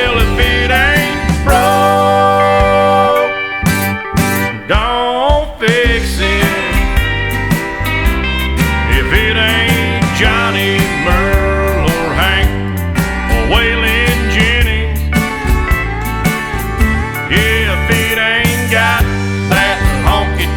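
Country music with a steady beat, a guitar-led instrumental stretch without clear singing.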